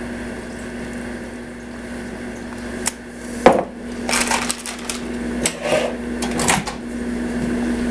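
Plastic food pouches crinkling and rustling as they are handled, with a sharp knock about three and a half seconds in, over a steady low hum.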